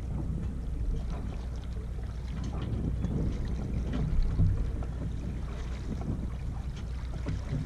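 Wind rumbling on the microphone over water swishing along the hull of a Yamaha 24 sailboat moving slowly under sail. It grows a little louder about four seconds in.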